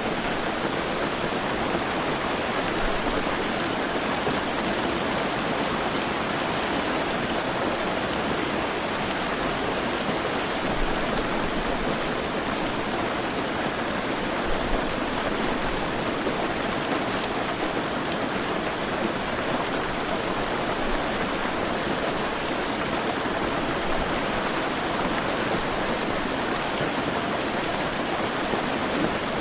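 Heavy rain falling steadily, a dense even hiss of drops with no let-up.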